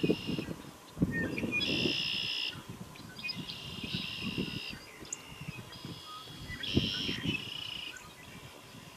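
A songbird singing a series of buzzy, trilled phrases, each up to about a second and a half long, with short gaps between them. Wind gusts buffet the microphone underneath.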